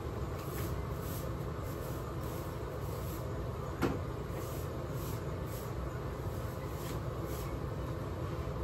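A steady low rumble with a single sharp knock a little before the middle.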